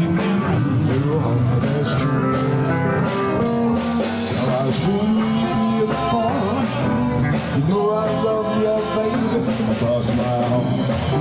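Live band playing rock and roll: keyboard with sung vocals over a steady beat.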